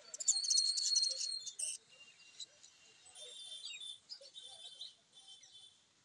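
Small caged birds chirping: a loud, rapid run of high chirps in the first second and a half, then quieter scattered chirps.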